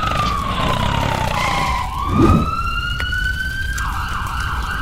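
Siren wailing: one tone slides down in pitch, sweeps back up and then holds, over a steady low rumble. A short, louder low burst comes about halfway through.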